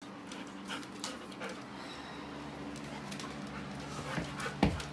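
Dogs milling about close by as they greet someone at the door, with light scattered clicks and one sharp knock near the end, over a steady low hum.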